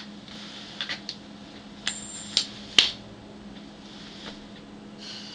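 A coin flipped with a brief high ring, then caught and slapped down: a few short sharp clicks and taps, the loudest about three seconds in, over a steady low hum.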